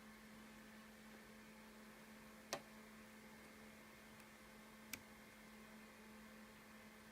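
Near silence with a steady low electrical hum, broken by two sharp clicks about two and a half seconds apart, the first the louder.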